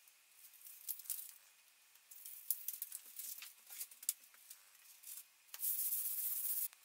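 Light crackles and taps of hands working double-sided tape on an MDF spoil board, then about a second of steady scraping hiss near the end as a slab of XPS foam is slid onto the board and pressed down.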